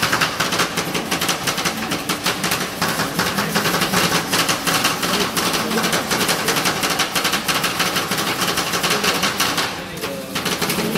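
Two steel spatulas chopping and tapping rapidly on the frozen steel plate of a rolled ice cream pan, working the ice cream base in a fast clatter of metal taps that thins out near the end.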